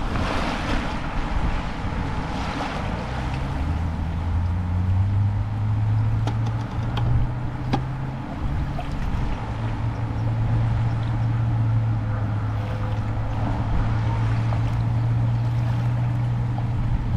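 An engine running with a steady low hum that starts about three seconds in and rises slightly in pitch a couple of seconds later, under constant wind buffeting the microphone.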